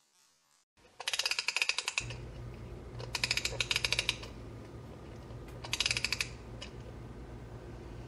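Rapid, evenly spaced clicking rattle in three bursts of about a second each, over a low steady hum that comes in about two seconds in.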